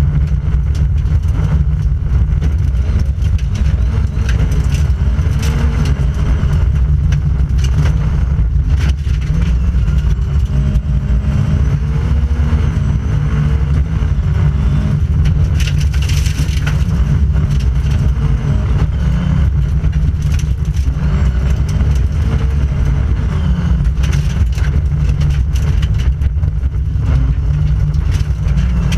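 Volvo 940 Group H rally car heard from inside the cabin at stage speed, the engine running hard with its revs rising and falling through gear changes. Frequent knocks and rattles come from the car pounding over the rough gravel road.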